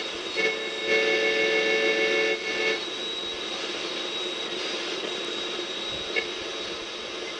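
Static hiss from a Wards Airline 8-band AM/FM/CB radio's speaker as a knob on its front is turned. A steady whistling tone sounds for about two seconds near the start, and there is a short click about six seconds in.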